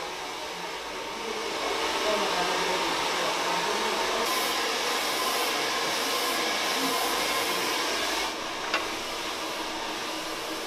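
Handheld hair dryer blowing steadily, a constant rushing whoosh that drops a little in level about eight seconds in, with a single click shortly after.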